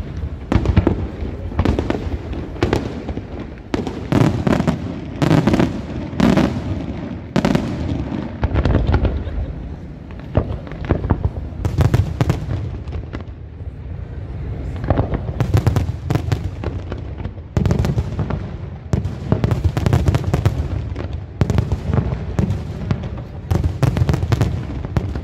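Aerial fireworks shells launching and bursting in a rapid, irregular run of bangs with deep rumbling echoes, easing off briefly about halfway through before building again.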